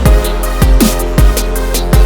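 Electronic background music with a heavy beat: punchy kick drums falling in pitch, sharp hits and a steady bass line.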